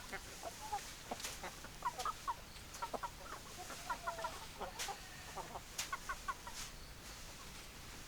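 Hens clucking: short calls in quick clusters, with a few sharp clicks among them.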